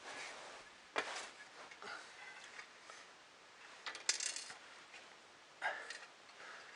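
Small metal parts of a printer kit, nuts, bolts and fittings, clicking and clinking as they are handled and fitted, a few sharp clicks with quiet fiddling in between.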